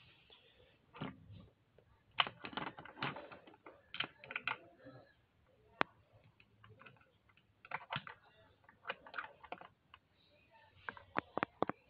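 Irregular light clicking and tapping of hermit crabs' legs and shells against plastic Lego bricks and baseplate, in uneven clusters with short pauses.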